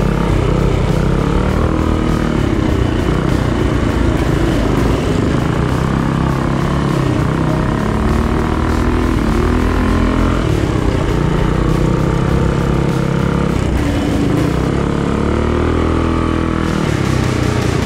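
Small single-cylinder four-stroke minibike engine running under load on a dirt track, its pitch rising and falling with the throttle, heard from on the bike.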